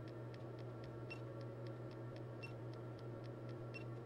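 Faint, evenly spaced clicks, about three a second, from a high-voltage transient generator firing repeated 5000-volt surge pulses into a multimeter under test, over a steady low electrical hum.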